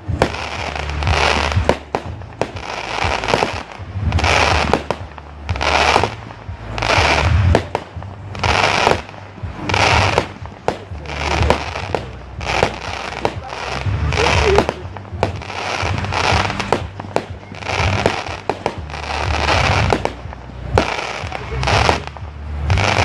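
Fireworks shells bursting one after another, about one every second or so, each a sudden bang trailing off into a hiss, with music and its bass line playing underneath.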